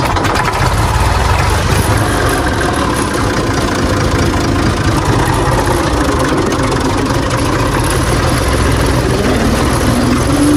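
Tractor engine running steadily close by, its pitch rising a little near the end.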